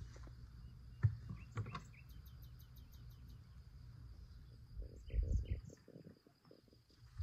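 Outdoor backyard ambience: a steady high-pitched insect drone with a few short bird chirps over a low rumble. A sharp knock about a second in is the loudest sound, followed by another shortly after and a cluster of dull thumps near the five-second mark.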